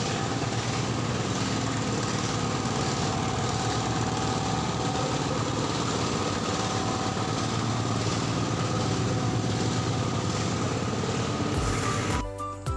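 Small engine of a wooden river longboat running steadily as the boat passes by, a continuous drone that cuts off suddenly near the end.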